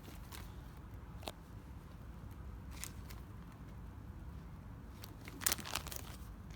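A few short rustles and taps from a sneaker being handled and turned over, the loudest pair about five and a half seconds in, over a low steady hum.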